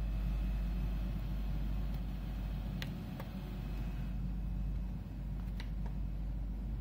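Steady low whirring hum of a running Epson EB-X11 projector's cooling fan, with a few faint clicks about three and five and a half seconds in.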